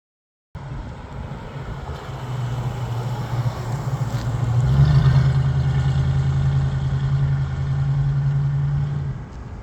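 Ford 302 cubic-inch V8 of a 1969 Mustang running with a deep, steady note. It grows louder toward the middle and drops away shortly before the end.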